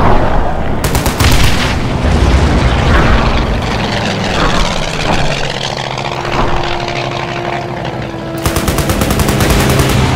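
Toy fighter planes' aircraft-engine sound effects sweeping in pitch as they pass in a dogfight, with two bursts of rapid machine-gun fire: a short one about a second in and a longer one near the end.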